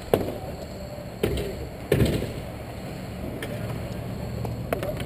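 Roller hockey sticks knocking against the court and each other as players set up for a faceoff: four sharp clacks, the loudest about two seconds in.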